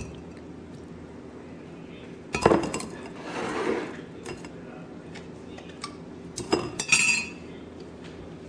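Kitchen dishes and utensils being handled: a sharp knock about two seconds in, a short clattering stretch after it, and a few clinks of glass and metal near the end.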